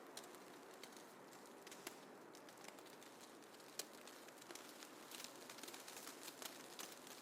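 Faint snowfall ambience: a soft, even hiss with scattered light ticks that come more often in the last couple of seconds.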